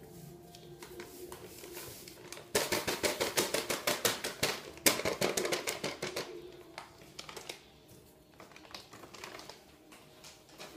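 Powdered chocolate cake mix being shaken out of its plastic packet into a blender jar: a fast run of small clicking rustles, many a second, that starts sharply and dies away after about five seconds.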